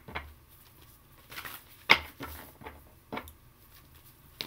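Oracle or tarot cards being handled on a table: a handful of light clicks and taps at uneven intervals, the sharpest about two seconds in.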